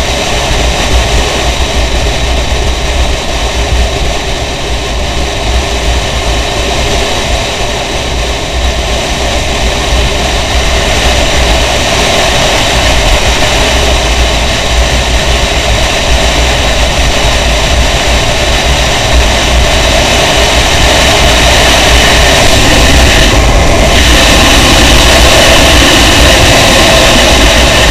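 Riding noise from a moving motorcycle: wind rushing and buffeting over the camera's microphone, with engine and road noise underneath. It grows gradually louder over the second half.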